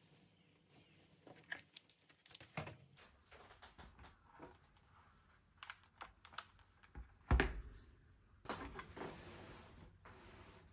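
Hands handling leather trucker wallets with brass snaps on a wooden tabletop: scattered light taps and clicks, with one dull thump about seven seconds in. Near the end comes a longer rustle of denim fabric being handled.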